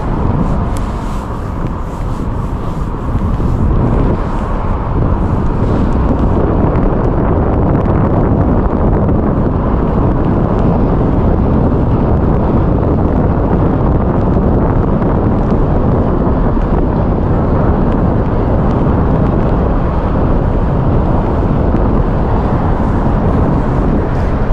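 Wind buffeting the microphone: a loud, steady low rushing noise.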